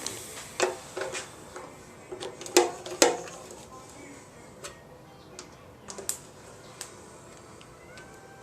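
Metal hand tools and bolts clinking and knocking while the oil pan is bolted onto a Ford 302 small-block, a few sharp knocks in the first few seconds, then lighter ticks.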